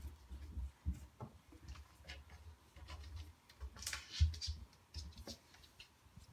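A Bengal cat clawing at cupboard drawers, trying to pry them open: irregular claw scratches and clicks on the drawer fronts with soft knocks and rattles. The loudest scrape and knock come about four seconds in.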